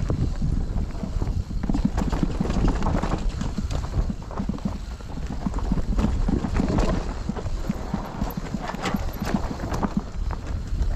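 Mountain bike riding down a rough bike-park trail: a dense, irregular clatter of chain, frame and tyres knocking over dirt and rocks, over a steady low rumble.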